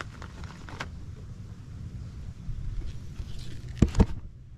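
Handling sounds as fingers work a shrimp bait onto a small circle hook, over a low outdoor rumble. There are a few faint ticks and then two sharp clicks close together near the end.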